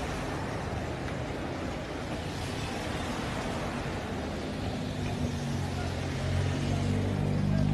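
Road traffic: steady vehicle noise with a low engine hum that grows louder over the last couple of seconds.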